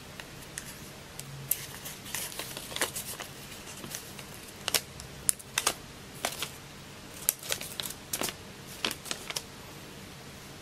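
Paper being handled and creased by fingers: irregular crisp clicks and light rustles as folds of a paper airplane are pressed and flexed, coming in small clusters, over a faint steady hiss.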